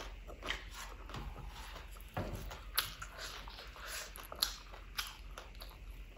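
Close-miked eating sounds of a person chewing a mouthful of rice and curry: wet chewing and lip smacks, with a few sharper clicks in the second half.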